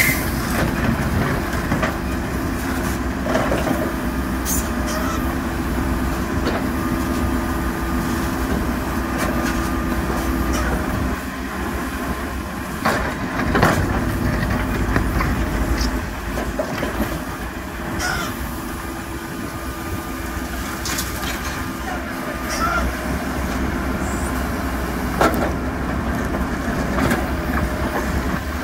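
Diesel engine of a heavy construction machine running steadily, with a few short knocks scattered through.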